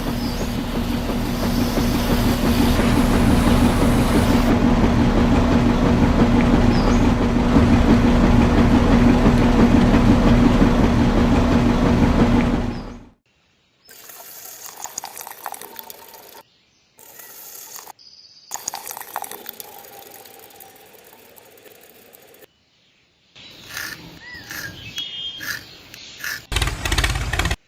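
A small motor running steadily with a constant hum, cut off abruptly about 13 seconds in; after that come fainter, choppy sounds broken by brief silences.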